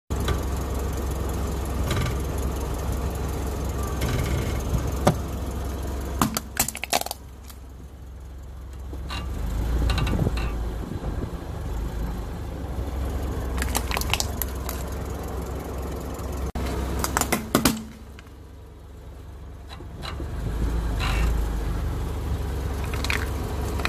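A car's engine runs as its tyre rolls slowly over plastic objects, a flashlight and toy binoculars. A quick run of sharp cracks and snaps comes about six seconds in and again a little past seventeen seconds as the plastic is crushed under the tyre, with scattered smaller clicks in between.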